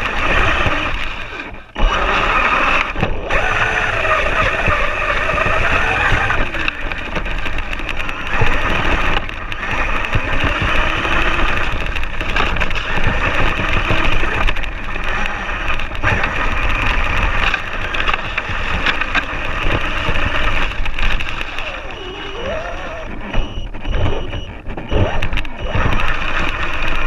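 Axial Yeti electric RC rock racer driving over rough grassy ground, picked up by a camera mounted on the truck: a dense rush of drivetrain, tyre and terrain noise, with the motor's whine rising and falling with the throttle near the end.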